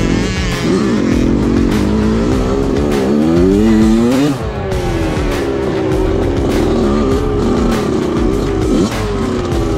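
Dirt bike engine revving up and down as it is ridden, its pitch climbing and dropping several times, with a sharp fall about four seconds in as the throttle closes.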